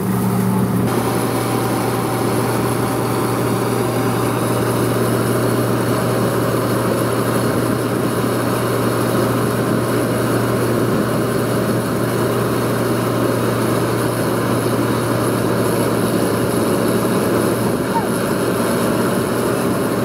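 CLAAS Crop Tiger 30 combine harvester running steadily while its unloading auger pours paddy grain into a tractor trailer: a constant engine hum with a dense rushing noise over it.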